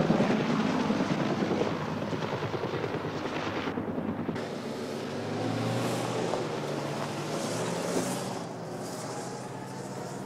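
Helicopter rotor beating in quick pulses for about four seconds. Then a car engine runs while its tyres crunch over a dusty dirt road.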